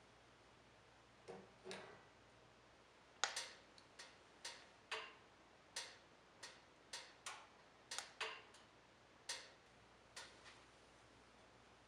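A series of light, sharp clicks and taps at uneven spacing, about fifteen in all, set against near-quiet room tone.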